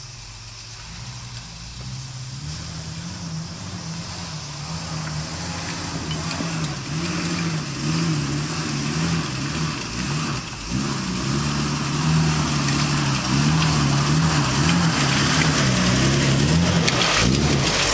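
A modified Jeep 4WD's engine working as the Jeep crawls down a rough sandy track, its pitch rising and falling as the throttle is eased on and off. It grows steadily louder as the Jeep comes close.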